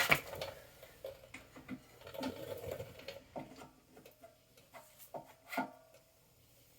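Irregular metal clicks, scrapes and knocks as a pressure washer pump is slid onto the engine's keyed crankshaft, with one ringing clank about five and a half seconds in.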